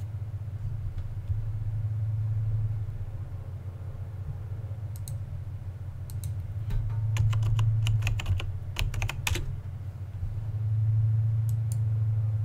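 A steady low hum with a run of sharp, light clicks and taps about five to nine seconds in and a couple more near the end, from hand tools being handled while vinyl upholstery panels are measured and cut.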